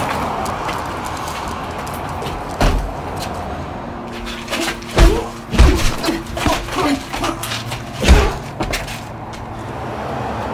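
Staged fist fight: a run of dull punch and body-hit thuds, one alone a few seconds in, then several in quick succession in the middle and a last heavy one about eight seconds in, over a steady background rush.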